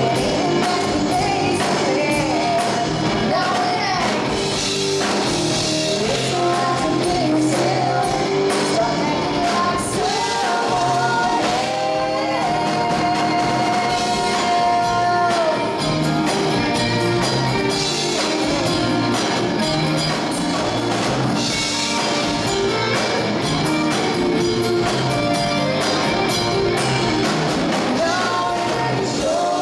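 Live band playing: two women singing over an acoustic guitar, electric guitar and drum kit, with one long held sung note about twelve seconds in.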